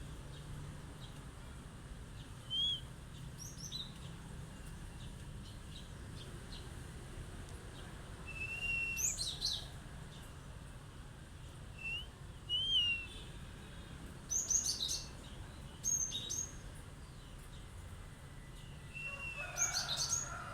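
Cinereous tit (gelatik batu) calling in sharp, short bursts: quick high chirps and brief whistled notes, in several clusters with pauses between.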